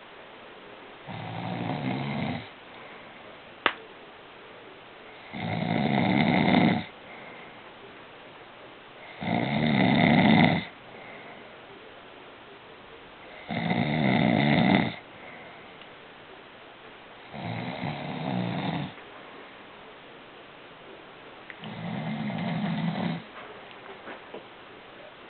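A sleeping man snoring, one long snore about every four seconds, six in all, each lasting about a second and a half. A single sharp click sounds a little before the second snore.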